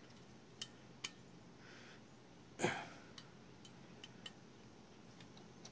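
Faint metallic clicks and ticks of small wrenches and steel bolts being handled while a Briggs & Stratton opposed-twin starter motor is bolted together, with two sharper clicks in the first second and a short breath sound about two and a half seconds in.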